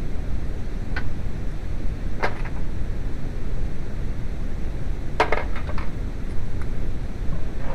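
A few light metal clinks, like tools or parts knocking against metal: one about a second in, one a little after two seconds, and a quick cluster a little after five seconds, over a steady low rumble.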